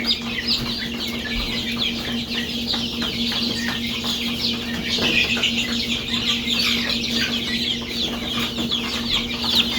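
A brood of young chicks peeping continuously, many short high chirps overlapping, over a steady low hum.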